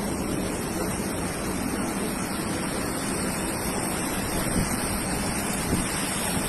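Airport apron ambience: a steady rushing noise with a low hum underneath.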